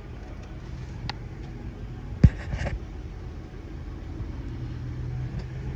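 Low steady rumble of a car, with a faint click about a second in and one sharp knock a little over two seconds in.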